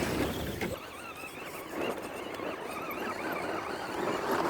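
Electric motor of a radio-controlled rock crawler whining, the pitch wavering up and down as the throttle is worked.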